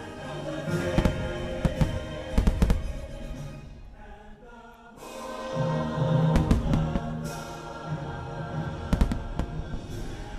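Fireworks bursting in several clusters of sharp bangs over a show soundtrack of music with a choir; the music drops away briefly about halfway through.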